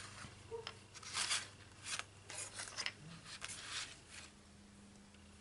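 Handmade paper cards being handled and slid across a table: several brief, faint rustles and scrapes that die away after about four seconds.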